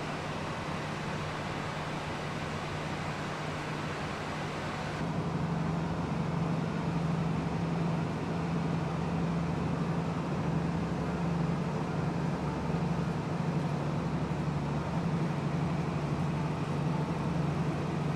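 Diesel tourist railcar running, heard from inside the passenger cabin: a steady engine drone with track and running noise. About five seconds in, the drone grows a little louder and slightly higher.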